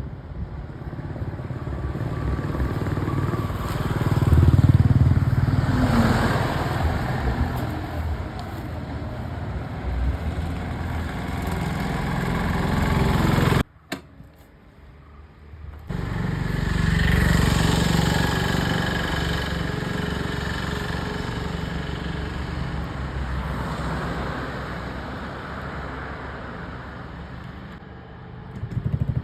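Motor vehicle engine running, swelling and easing in level, with a sudden drop about fourteen seconds in and the engine sound returning a couple of seconds later.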